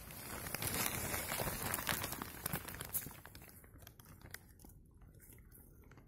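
Footsteps through undergrowth: rustling and crackling of leaves, plants and twigs on the forest floor for about three seconds, then fading to faint.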